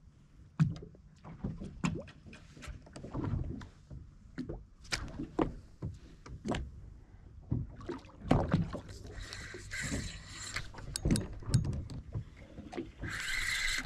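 Small waves slapping and knocking against a fishing boat's hull in irregular splashes and thuds. A brief hissing buzz comes about nine seconds in and another near the end.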